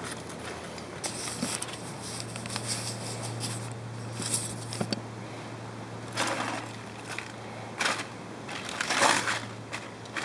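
Aluminium foil crinkling and crumpling as it is handled, in several sharp bursts in the second half.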